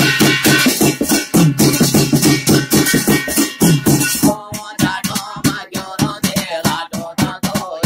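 Garhwali jagar ritual music: fast, dense drumming, with a voice singing the jagar over it from about halfway through.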